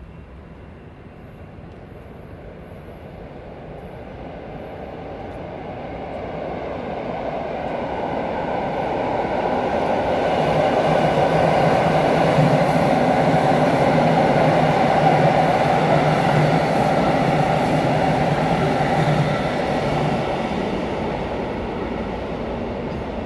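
Two coupled EN57AKM electric multiple units running along a far platform track, with rolling noise and a steady electric motor hum. The sound builds over about ten seconds, holds for several seconds, then eases off.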